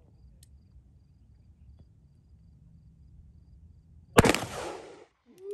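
A single 158-grain .357 Magnum shot from a 3-inch Colt King Cobra revolver, about four seconds in: a sharp crack that rings out and dies away over most of a second.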